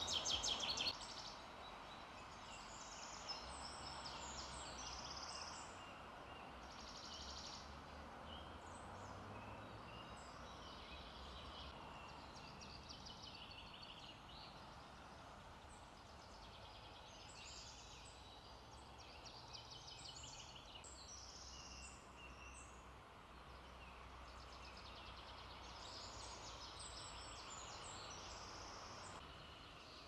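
Woodland birds singing, many short chirps and trills from several birds, with a loud rapid trill at the start. Under them runs a faint steady low rumble.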